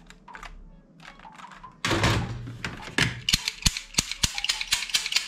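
Plastic toy guns clattering and knocking against each other in a cardboard box as they are handled and rummaged through: a loud clatter about two seconds in, then a quick run of sharp plastic clicks and knocks.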